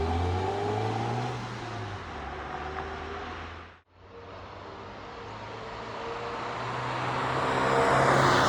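Ford Fiesta with its stock exhaust driving, the engine note easing off over the first few seconds. After a brief break about four seconds in, the car's sound builds steadily louder toward the end.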